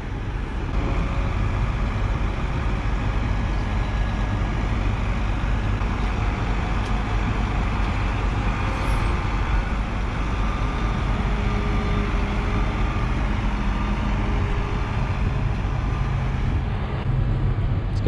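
New Holland combine harvester's diesel engine running steadily, a low rumble with a faint whine, as the combine moves up and takes on its header.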